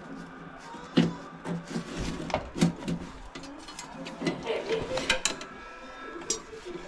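Scattered clicks, knocks and rustling as wires are handled and pulled inside a furnace's sheet-metal cabinet. A few sharper knocks stand out about a second in, at about two and a half seconds and at about five seconds.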